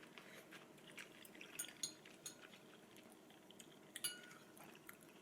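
Eating utensils lightly clinking against dishes at a meal: a few faint, scattered clinks, the clearest one about four seconds in with a short ring.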